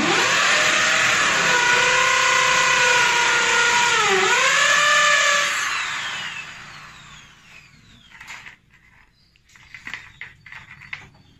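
Electric power drill running for about five and a half seconds, its pitch dipping briefly about four seconds in before picking up again, then winding down. A few light taps follow near the end.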